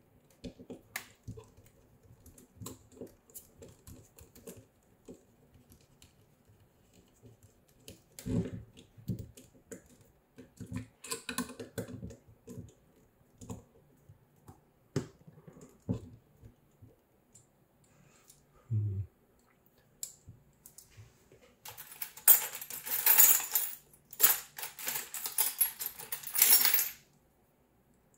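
Small plastic and metal parts and tools handled on a workbench: scattered light clicks and taps, a single dull thud about nineteen seconds in, then several seconds of louder clinking and rattling of metal tools near the end.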